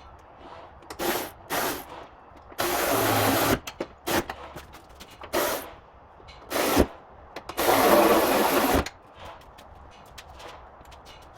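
Cordless power tool run in bursts on the car's bonnet hinge bolts: two brief spins, a run of about a second, two more brief spins, then another run of about a second.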